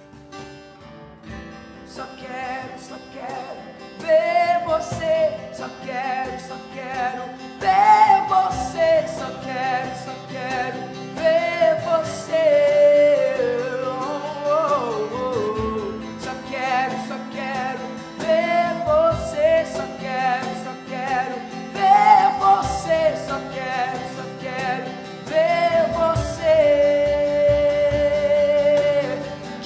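A male voice singing a slow melody over a strummed acoustic guitar and a cajón. For the first few seconds the guitar plays alone, and the voice comes in about four seconds in.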